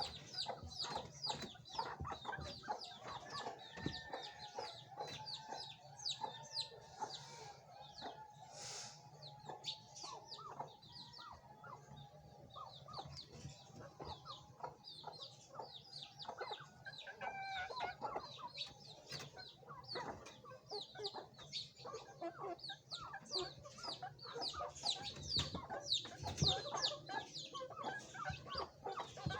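Chickens clucking, over a constant stream of quick, high chirps that slide downward.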